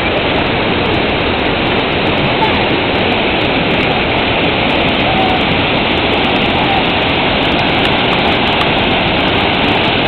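Waterfall pouring into a rocky pool: a loud, steady rush of falling water.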